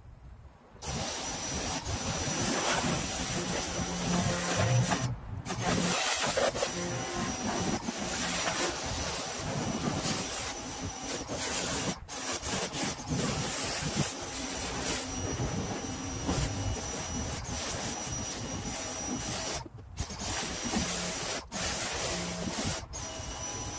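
Pressure washer spraying water onto a car's paint, rinsing off the foam: a steady hiss that starts about a second in and breaks off briefly a few times as the trigger is let go and pulled again.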